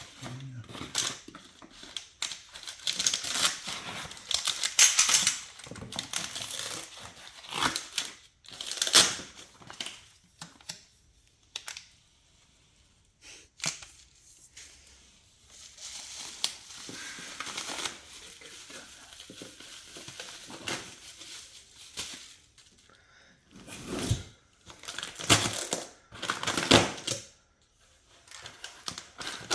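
Plastic packaging being handled, crinkled and torn off a bicycle frame during unboxing, in irregular bursts of rustling and crackling with scattered sharp clicks and knocks. A quieter lull comes about halfway through.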